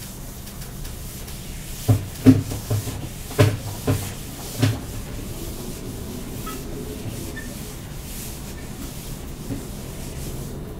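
Whiteboard being wiped with an eraser: a faint steady rubbing, with about six sharp knocks against the board between about two and five seconds in.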